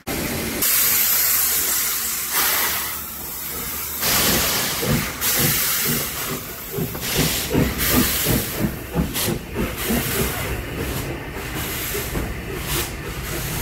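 Southern Railway Schools class steam locomotive pulling away with its cylinder drain cocks open. Loud hissing of steam comes first, then its exhaust beats join in about four seconds in and quicken as it gathers speed.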